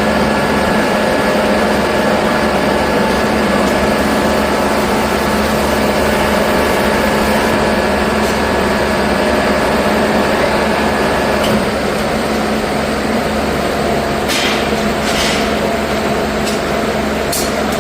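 Machinery running steadily with a hum of several steady tones. The sound changes and drops a little about two-thirds of the way through, and a few short sharp sounds come near the end.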